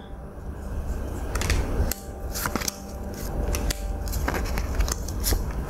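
Playing cards being handled on a table: a series of light, irregular clicks and taps over a low rumble.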